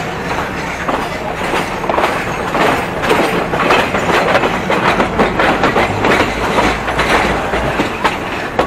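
Passenger train wheels clattering over rail joints and switches, heard close up from an open carriage window of the moving train: a steady rumble with many irregular sharp clacks.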